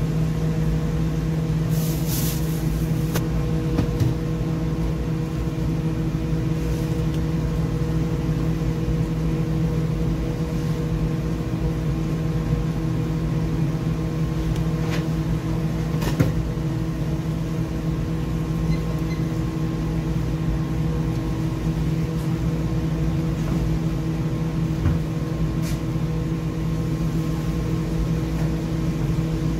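Steady mechanical hum of a running machine at a food stall's prep counter, with a strong low drone and a few fainter higher tones, broken by a few light clicks and knocks.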